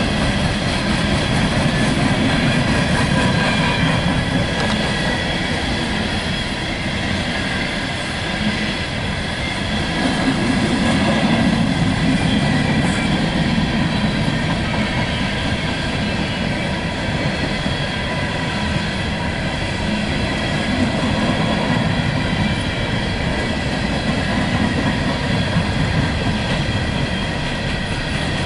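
Empty open-top coal hopper cars of a freight train rolling steadily past at close range: a continuous rumble of steel wheels on rail, with steady high-pitched wheel squeal ringing over it.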